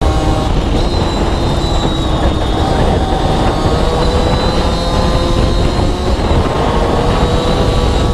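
Aprilia RS4 50's two-stroke 50 cc single-cylinder engine running hard through a Gianelli carbon exhaust, its pitch drifting gently up and down with the throttle. Heavy wind buffeting on the microphone runs underneath. The sound cuts in abruptly at the start.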